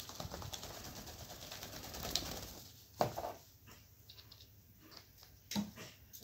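Alexandrine parakeet's wings flapping in a fluttering flurry for about two and a half seconds, followed by two sharp knocks, about three seconds in and again near the end.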